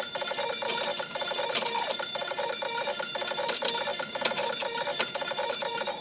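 Background music with a fast, repeating high-pitched figure.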